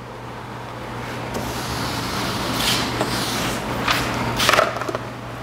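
Rustling and shuffling as a person moves up to a whiteboard, growing louder, with three brief swishes in the second half, over a steady low hum.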